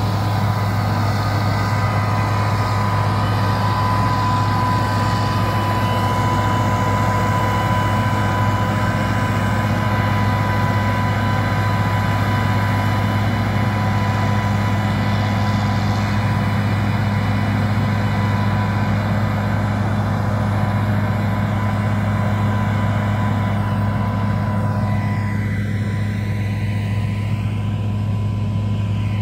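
Heavy machinery engine running steadily: a constant low drone with steady high-pitched whines above it.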